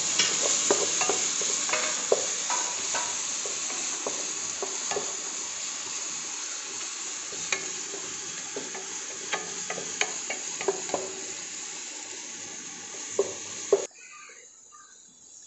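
Crushed ginger, garlic and onion sizzling in hot coconut oil in a pan, stirred with a wooden spatula that knocks and scrapes against the pan in short clicks. The sizzle slowly dies down, then cuts off suddenly near the end.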